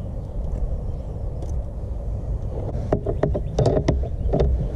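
Handling noise at a car's trunk fuse box: a steady low rumble, then a quick run of clicks and rattles about three seconds in as the taped wires are moved around.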